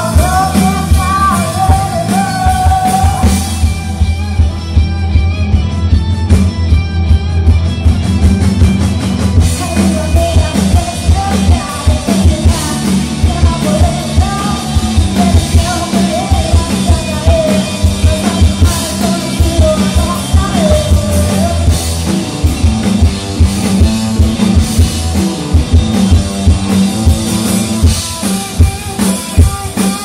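Live rock band playing: a singer's wavering melody over drum kit, bass and electric guitar, heard from the audience with a heavy low end. The drums come to the fore near the end.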